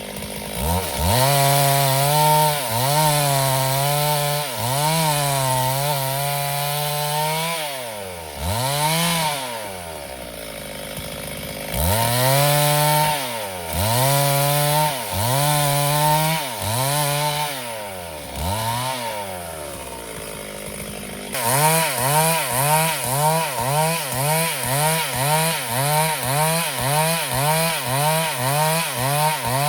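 Gasoline chainsaw engine revving up and dropping back over and over as it cuts wood, about once a second. It eases off twice, and about two-thirds of the way in the rhythm quickens to about two revs a second.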